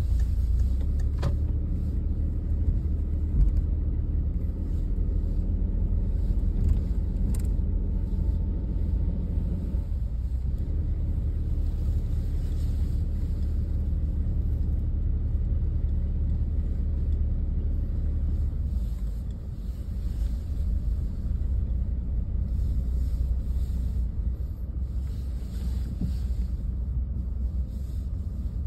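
Car driving slowly, heard from inside the cabin: a steady low engine and road rumble, with a sharp click about a second in and another about seven seconds in.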